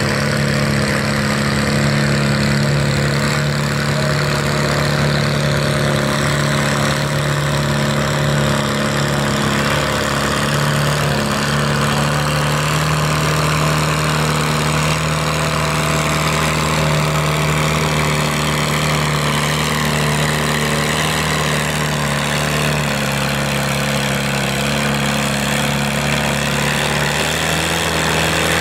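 Farmall H tractor's four-cylinder engine working hard under load as it pulls a weight-transfer sled, running loud and steady, its pitch sinking slowly as the sled bears down.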